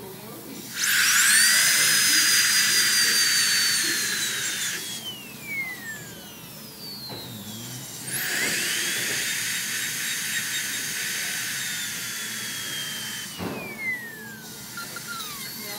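Dental drill whining in two runs, each spinning up to a steady high pitch and then winding down with a falling whine, as leftover braces glue is ground off the teeth.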